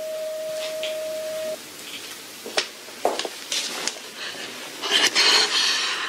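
Patient heart monitor's flatline alarm: one steady beep tone held, then cutting off about a second and a half in, the sign of cardiac arrest with no heartbeat. After it come scattered faint clicks and a brief rustling burst near the end.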